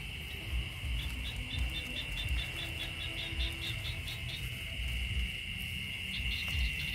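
Steady, high-pitched chirring of crickets in a night-time field. A second, faster pulsed chirping, about five a second, runs from about one second in to past the middle. Low bumps sit underneath.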